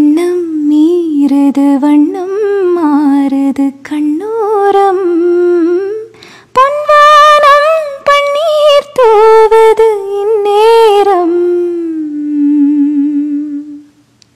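A woman humming the song's melody unaccompanied, with vibrato. The tune climbs higher a few seconds in, then settles and ends on a long wavering note that fades out near the end.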